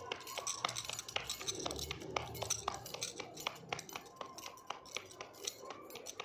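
Glass bangles on a wrist clinking in quick, irregular clicks as bajra dough is patted by hand into a roti.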